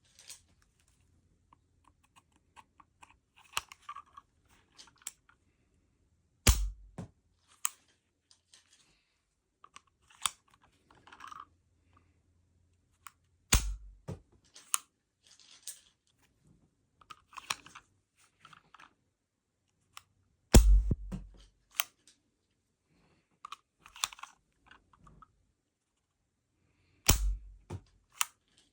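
CZ 82 pistol, a 9×18mm Makarov handgun, fired four times to shoot pencils, each shot a sharp crack with a low boom, about seven seconds apart. Light clicks and rattles come in between the shots.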